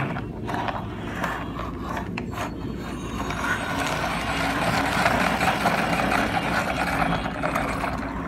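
Plastic toy bus being handled and rolled: a few clicks at first, then a steady rattling scrape of its wheels and body.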